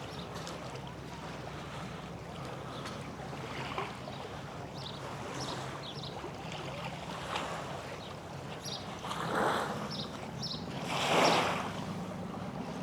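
Small sea waves washing onto a sandy beach, with two louder washes near the end, over a steady low drone and some wind on the microphone.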